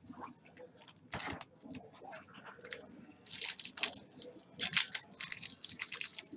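Foil trading-card pack crinkling and tearing as it is handled and opened by hand. A few scattered crackles at first, then dense, irregular crinkling from about halfway in.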